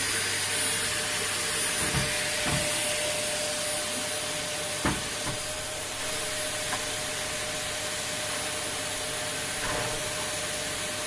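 Vacuum cleaner running steadily, a hiss with a thin whine, with a few brief knocks as it bumps along.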